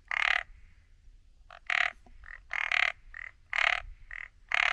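Tree frog calling: a loud, rasping call roughly once a second, with a shorter, quieter note between the loud calls from about one and a half seconds in.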